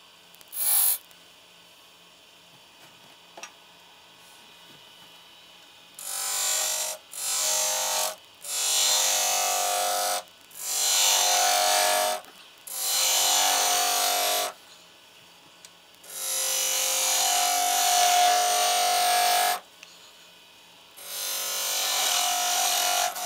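A turning tool cutting into a spinning wooden spindle on a lathe. There is one brief cut under a second in, then the lathe's quiet running until about six seconds in. After that come seven cuts, each lasting from one to three and a half seconds, with short pauses between them.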